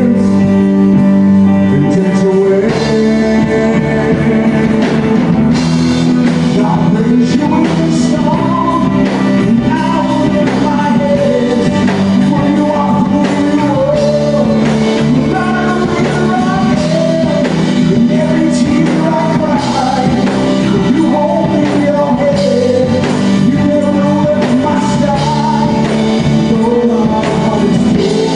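Gospel band music with a singer over a steady, loud instrumental backing.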